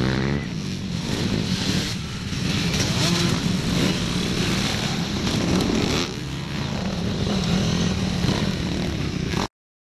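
Motocross dirt bike engines running and revving, rising and falling in pitch. The sound cuts off abruptly near the end.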